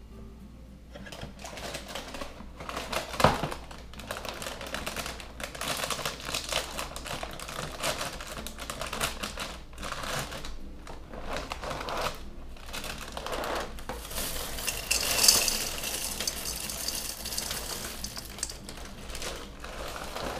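Plastic liner bag of a Frosted Flakes cereal box crinkling and rustling as it is handled, with scattered clicks and a sharp knock about three seconds in. About fifteen seconds in, a louder stretch of dry crackling hiss: the flakes pouring into a bowl.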